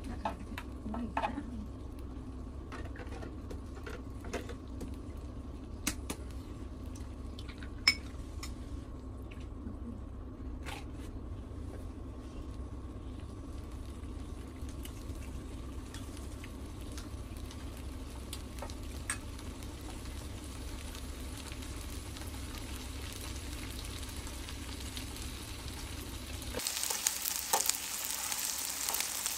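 Fried rice with beef, octopus and an egg sizzling on a hot grill pan, with metal spoons clicking and scraping against the pan as it is stirred. The sizzle turns much louder and brighter near the end.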